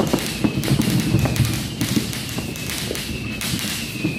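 New Year's fireworks and firecrackers going off all around in a dense, irregular barrage of pops and bangs, with faint high whistles that slide slowly down in pitch.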